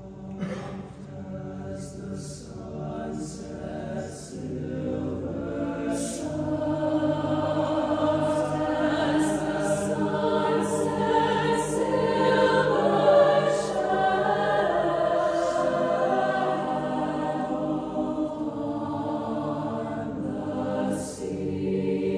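Mixed-voice youth choir singing unaccompanied in long held chords, swelling in loudness toward the middle and easing back slightly near the end.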